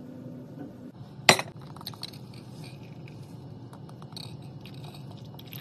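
One sharp glass clink about a second in, followed by small clinks and a thin trickle of coffee being poured into a glass.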